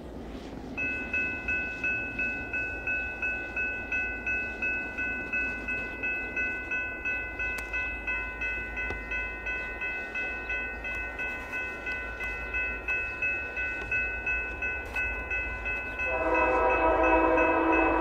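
Railroad grade crossing bell ringing steadily, about two strikes a second. About sixteen seconds in, an approaching Union Pacific freight locomotive's horn sounds loudly over it.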